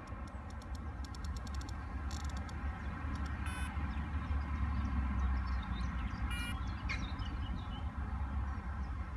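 Wind rumbling on a phone microphone, with two short electronic beeps about three seconds apart from a carp rod's bite alarm. Faint bird chirps in the middle.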